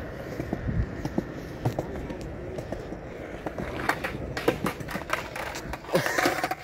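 Skateboard wheels rolling on concrete with a steady low rumble. From about four seconds in come several sharp clacks of the board.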